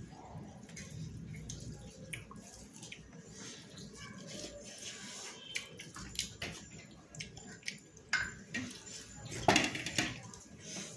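Close eating sounds: wet chewing and mouth smacks, with soft squishes and clicks as rice is mixed and scooped by hand on a steel plate. About nine and a half seconds in comes a louder knock as a wire basket is set down on the table.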